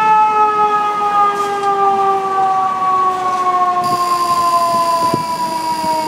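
Fire truck's siren winding down, one long wail sliding slowly and steadily lower in pitch. A faint high steady whine joins about four seconds in.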